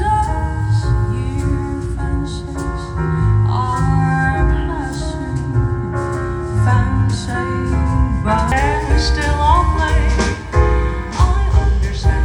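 Live band playing with a sung lead vocal gliding over keyboard chords, heavy bass and a steady drum beat.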